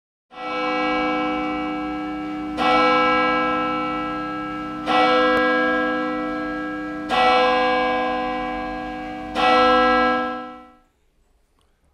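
A single church bell tolling five times, a little over two seconds apart, each stroke ringing on and slowly dying away before the next. The last stroke fades out about a second before the end.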